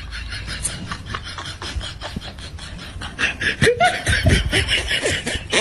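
Laughter in rapid, rasping pulses, growing louder about three seconds in.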